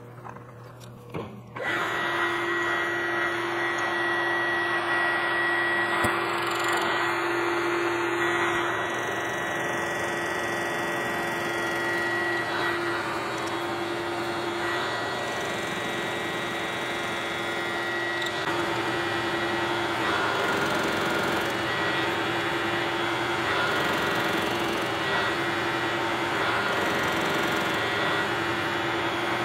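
Vertical milling machine switched on about two seconds in, its spindle running steadily with a constant hum while an end mill cuts finger grooves into the edge of an aluminum cap held in a chuck on a rotary table.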